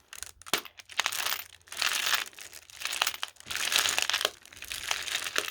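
Hands rummaging through a heap of vintage glass marbles, the marbles clicking and rattling against each other in irregular bursts.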